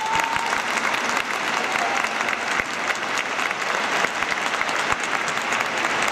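Stadium crowd of football supporters applauding steadily.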